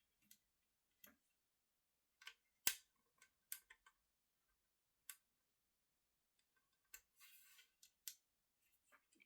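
Quiet, scattered clicks and taps of small parts being handled as a graphics card is put back together. The loudest click comes about two and a half seconds in, and a brief scraping rustle comes about seven seconds in.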